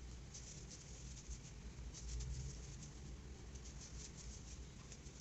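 Faint scratchy rustling of a 4 mm crochet hook pulling plush yarn through stitches, in short clusters of quick strokes as single-crochet increases are worked.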